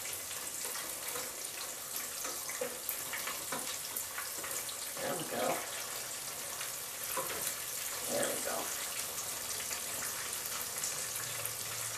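Cornmeal-battered fish frying in hot shortening in a skillet: a steady sizzle. A few clicks and scrapes from a slotted spatula as the pieces are turned.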